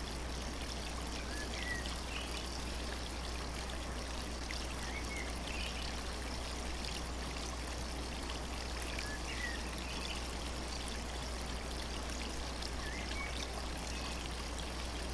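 Steady rush of waterfall water over a constant low hum, with faint, scattered bird chirps every few seconds. The birds are barely heard under the water, and the hum is background noise from a poor-quality recording.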